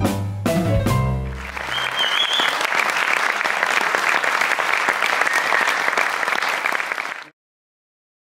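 A jazz grand piano and Sonor drum kit finish a tune on a last chord and drum hits, then a concert audience applauds, with a short whistle from the crowd about two seconds in. The applause cuts off suddenly near the end.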